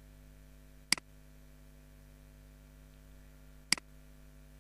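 Two sharp computer-mouse clicks about three seconds apart, over a steady low electrical hum.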